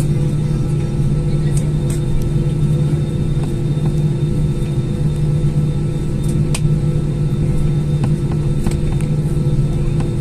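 Cabin noise of a jet airliner taxiing after landing: the underwing turbofan engines give a steady low hum with a few faint clicks.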